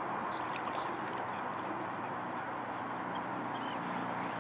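Lake water sloshing around a weigh sling as a common carp is lowered and released, with waterfowl calling.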